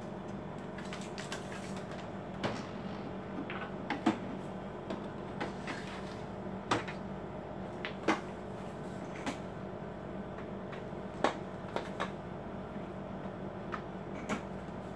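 About ten scattered plastic clicks and knocks from handling an Epson L4160 inkjet printer: the scanner lid is shut, the output tray pulled out and paper fitted into the rear feed slot. A steady low hum runs underneath.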